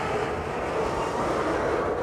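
Container freight train's wagons rolling slowly past with the brakes applied: a steady noise of wheels on the rails.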